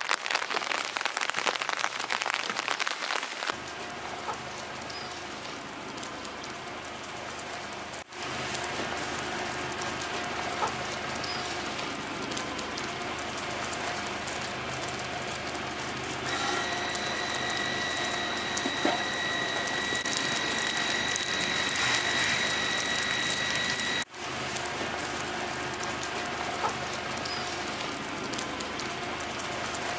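Steady rain falling, an even hiss of drops on the ground. A faint steady high tone sounds for several seconds past the middle.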